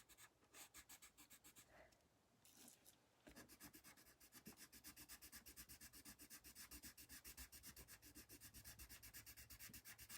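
Coloured pencil shading on paper: quick, even back-and-forth scratchy strokes, with a brief pause about two seconds in before the strokes resume.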